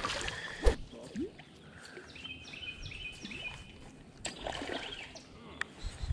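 A small bird calling in a run of short, repeated high chirps, over faint outdoor background noise. There is a single sharp knock about a second in.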